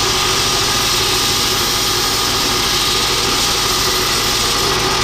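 Electric grinder running steadily under load, grinding down the end of a steel rebar rod to take off material.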